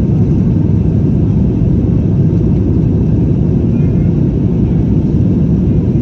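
Airbus A321-211 cabin noise: a steady low rumble of the jet engines and airflow heard from inside the passenger cabin.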